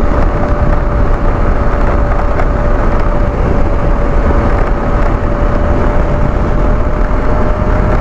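BMW F 850 GS parallel-twin engine cruising steadily at about 106 km/h, under heavy wind rush on the microphone, with a steady high whine running over it.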